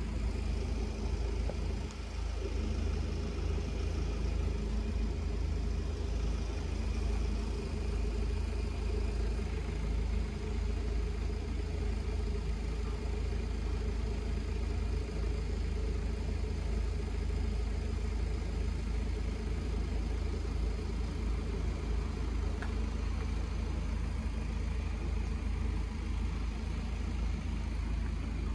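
Steady low rumble of road vehicle engines idling, with no passing train and no distinct event.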